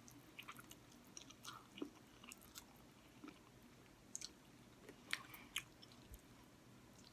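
Faint chewing of noodles, with scattered soft mouth clicks and smacks.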